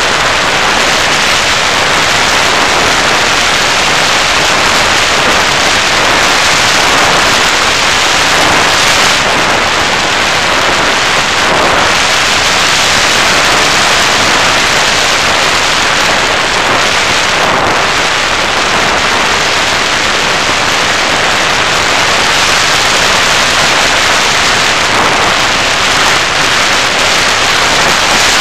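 Loud, steady rushing noise picked up by the onboard camera of an FPV Raptor model plane in flight: air rushing over the microphone together with the plane's motor and propeller, blended into an even hiss with no distinct engine tone.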